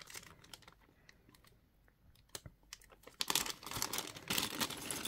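Small clear plastic parts bag crinkling and crackling as it is pulled open by hand: a few faint crackles at first, growing louder and denser about three seconds in.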